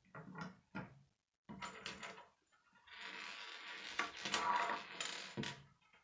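Plastic K'nex pieces clicking and knocking on a wooden table: a few short knocks as a built piece is set down, then a longer clattering rattle, with some sharper clicks, as loose pieces are picked through by hand.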